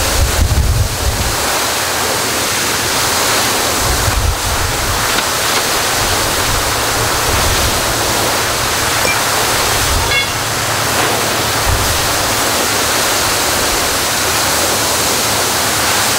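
Water gushing up from a broken fire hydrant in a tall geyser, a steady, loud rushing hiss of spray.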